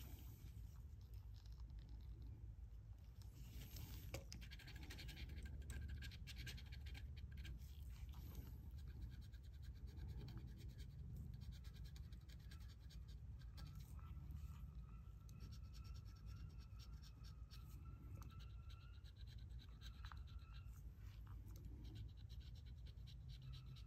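Faint, rapid scratching: a pen-style scratcher tool scraping the coating off a paper scratch-off lottery ticket, many quick short strokes in a row.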